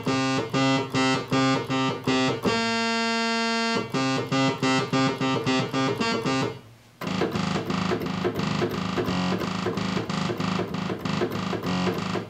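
Oberheim OB-X eight-voice analog synthesizer with one key struck over and over, about three or four notes a second, each press going to the next voice. One of the eight voices is far off pitch from the rest on the uncalibrated synth. One note is held for about a second and a half early on, and after a short break in the middle, quicker repeated notes follow lower down.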